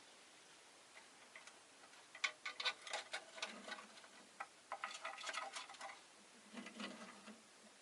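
Rosy-faced lovebird chattering softly in three bursts of rapid clicking, ticking notes, the first about two seconds in.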